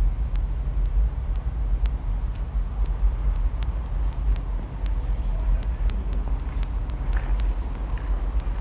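Footsteps on a gritty concrete floor: scattered sharp clicks and crunches, more frequent in the second half, over a steady low rumble of wind or handling noise on the camera microphone.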